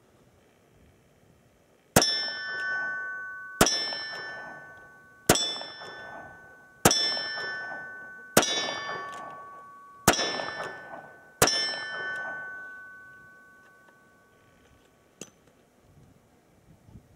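Seven .38 Special shots from a Smith & Wesson 686 Plus revolver, fired at a steady pace about one and a half seconds apart. Each shot is followed at once by the ring of a steel silhouette target being hit, the rings at two slightly different pitches from the two plates.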